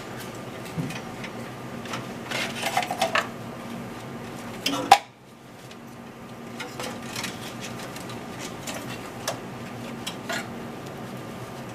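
Hands handling hard parts while working on a power supply: small clicks, clinks and rattles over a steady faint hum, with a sharp loud click about five seconds in.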